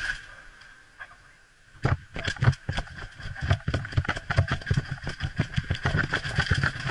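Mountain bike clattering down concrete steps: a rapid, irregular run of sharp knocks and rattles from the frame, chain and suspension as the wheels hit each step, starting about two seconds in after a quieter stretch.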